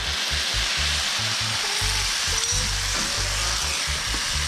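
Gravy of hot water and Gravox poured into a hot frying pan of onions, hissing and sizzling steadily, as a wooden spatula stirs it through.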